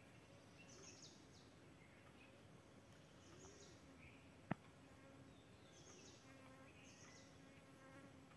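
Faint buzzing of a flying insect, wavering in pitch and then holding steady through the second half, with scattered faint high chirps. A single sharp click sounds once about four and a half seconds in.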